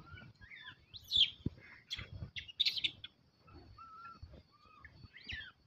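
Short high-pitched animal chirps and squeaks, the loudest about a second in and again near three seconds, over soft scuffling.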